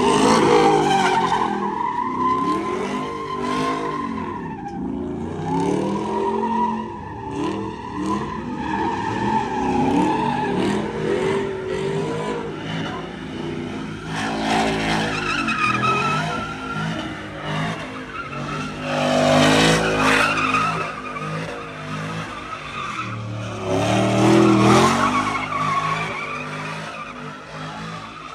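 Pickup truck doing donuts. The engine revs up and down again and again, and the spinning tyres squeal against the pavement.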